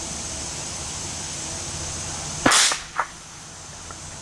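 A single shot from a Hatsan Escort .22 LR bolt-action rifle about two and a half seconds in: a sharp, loud crack. A fainter crack follows about half a second later.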